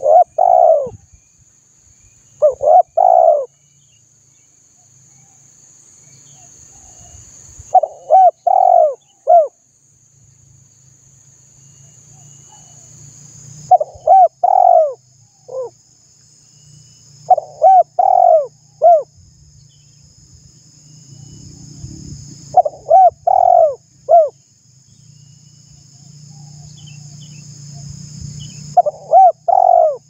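Spotted dove cooing: repeated phrases of three or four coos, one phrase every four to six seconds.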